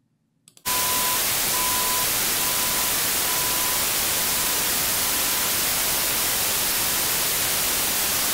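White noise hissing steadily from about half a second in, with a pure test tone beeping in short pulses about once a second. Each beep is a step quieter than the last, until the tone disappears into the noise: the tone is being masked by the white noise.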